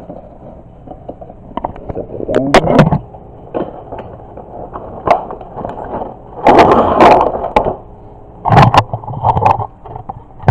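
A toy's cardboard box and plastic packaging being opened by hand: scattered clicks and handling knocks, with several louder bursts of rustling and crackling, the loudest about six and a half to seven and a half seconds in.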